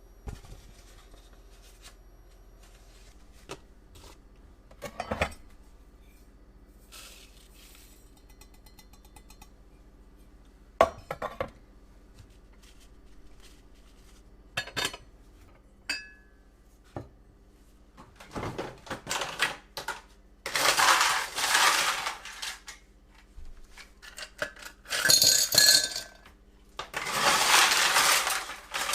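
Kitchen work: scattered clinks and knocks of utensils and dishes, then, in the last ten seconds, several loud rushing noises of a second or two each.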